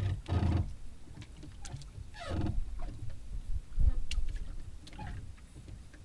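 Water slapping and sloshing against the hull of a small boat in irregular splashes, with a low knock a little under four seconds in.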